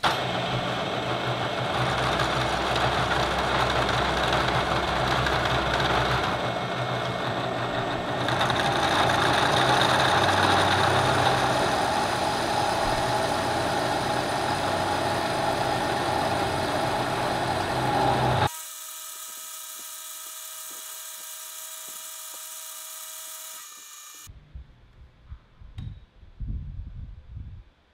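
Vertical milling machine's end mill cutting steel: a steady harsh cutting noise over the spindle motor's hum, shifting in tone a couple of times. About eighteen seconds in the cut stops abruptly, leaving a quieter steady machine hum, and near the end there are a few low bumps.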